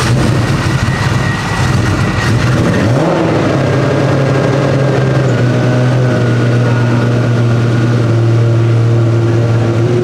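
High-horsepower drag-built Toyota Supra engine running just after start-up, with a quick rise in revs about three seconds in, then settling into a steady, loud idle.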